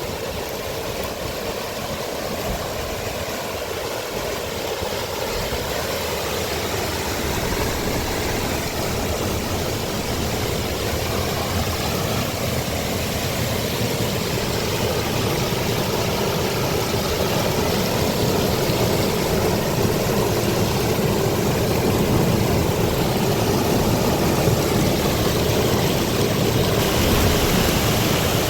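Steady rushing noise of a heavy rainstorm, rain and running water together, slowly getting louder.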